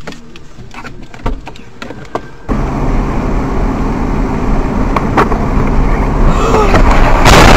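Dashcam audio from inside a moving car: cabin road and engine noise, with a few sharp clicks in the quieter first part. About two and a half seconds in it jumps to louder tyre and engine noise on a wet road, swelling near the end with a loud wavering sound.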